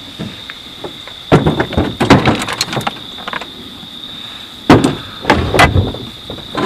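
Chainsaws and scrap metal clattering in a pickup truck's bed as they are loaded and shifted: two bouts of sharp metal knocks and clanks, one about a second in and another near the end. A steady high-pitched drone runs behind them.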